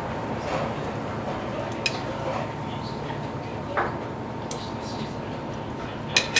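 Steady kitchen noise with three sharp clinks of dishes or utensils, roughly two seconds apart, and faint voices underneath.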